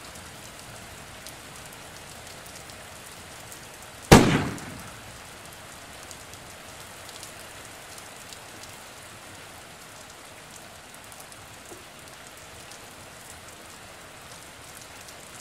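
Steady rain falling, with one sharp thunderclap about four seconds in that dies away over about a second.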